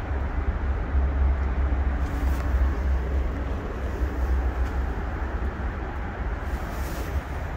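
Wind buffeting the phone's microphone: a steady, gusting low rumble over a soft hiss.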